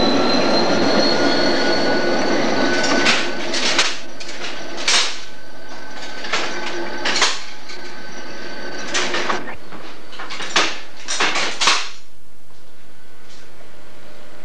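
A locomotive passes close by with a steady rumble and a faint, slowly rising whine, which fade out about three seconds in. After that come about a dozen sharp, separate clicks and knocks at irregular intervals over a steady hiss.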